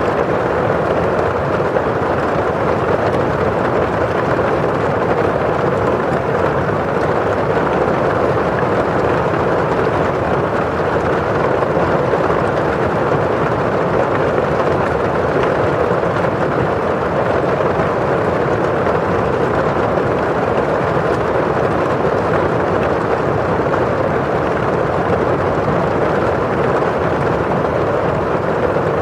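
Steady rain on window glass and falling outside, an even, unbroken rushing noise with no separate drops standing out.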